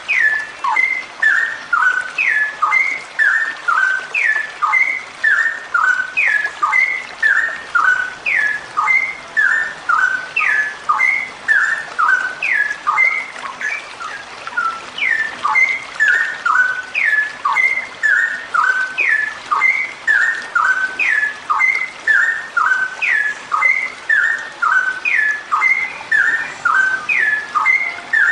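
Female straw-headed bulbul (cucak rowo) calling on and on: a phrase of several short, clear whistled notes, each dropping in pitch, repeated about every two seconds.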